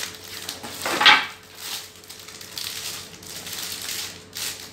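Cardboard box and plastic packaging being handled, rustling and scraping as accessories are taken out. There is one loud crackle about a second in.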